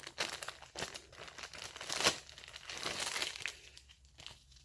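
Paper crinkling and rustling as a large folded instruction sheet is handled and opened out, in irregular crackles that die down near the end.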